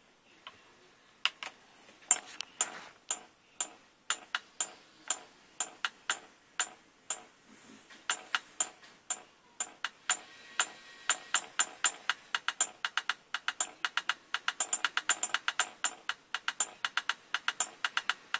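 Caveman drummer toy alarm clock tapping out a beat: sharp metallic clicks with a short ring, about one a second at first, speeding up to several a second near the end.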